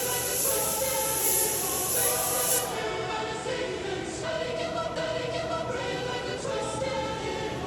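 Background music with singing voices. A steady high hiss runs under it and stops about two and a half seconds in.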